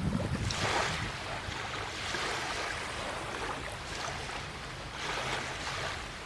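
Small waves washing onto the shore in repeated surges a couple of seconds apart, with wind rumbling on the microphone.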